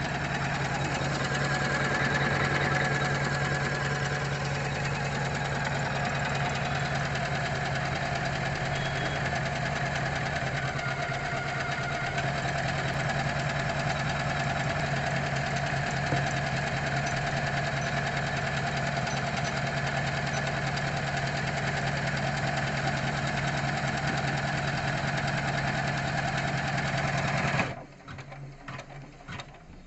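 MC 450 computerized embroidery machine stitching at steady speed: an even, rapid needle clatter over the motor's hum. It stops suddenly near the end, leaving a few faint clicks.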